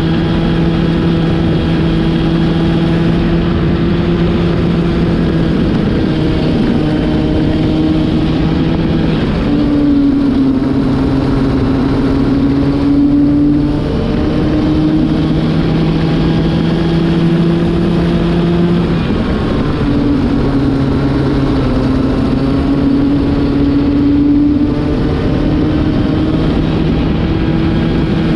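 Racing kart engine running hard, heard from onboard the kart, its pitch dipping twice, about ten seconds in and again near twenty seconds, then climbing back as the kart slows and picks up speed. The engine is a new one being run in.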